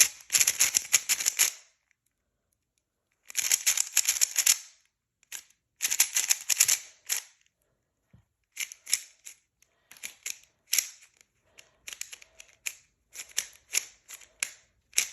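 Ballcore 3x3 speedcube being turned: its plastic layers click and clack in quick bursts, then in sparser single turns a few per second from about halfway.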